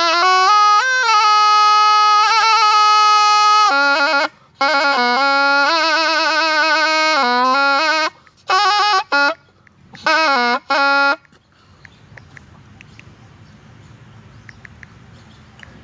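Thai pi, a reed oboe, playing a melody with wavering, vibrato-laden notes in phrases broken by short breaths, stopping about eleven seconds in. Afterwards only faint background noise with a few small clicks.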